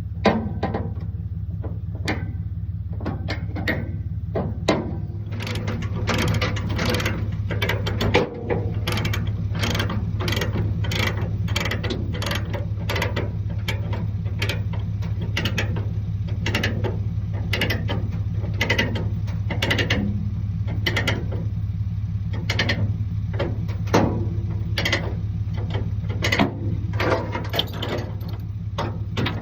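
A ratchet tie-down being worked in runs of quick clicking strokes, over a steady engine idle.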